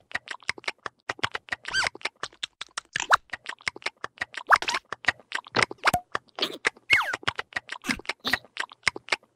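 Cartoon larva characters' squeaky, clicky vocal effects: a fast, irregular run of short clicks and squeaks, a few of them gliding in pitch.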